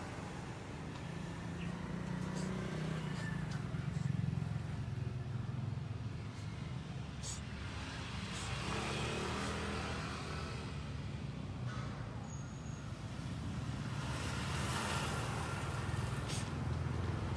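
Road traffic rumbling, with vehicles going by about halfway through and again near the end.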